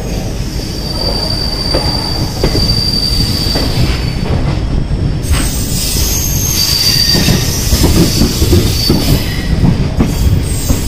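Passenger train running on the rails with a steady rumble and a high, thin wheel squeal. The squeal holds for about four seconds, then comes back in several pitches in the second half, as the train slows into a station.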